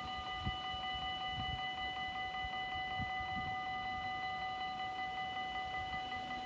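Dutch level-crossing warning bell ringing continuously, a steady multi-tone ring with a fast even pulse, over a few low knocks in the first half.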